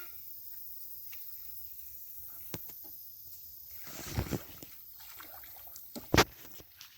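Small inflatable raft on the water with light sloshing and small knocks. There are a couple of low thumps about four seconds in, and a sharp, loud thump just after six seconds.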